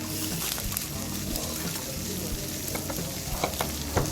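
Pork sizzling on a grill over oak-wood embers, a steady crackling hiss. A few sharp clicks come near the end.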